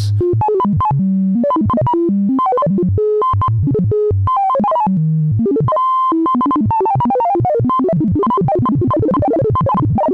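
Modular synthesizer voice stepping through a stream of random pitches set by the Make Noise Richter Wogglebug's stepped random voltage. The notes jump irregularly up and down, and come faster in the second half.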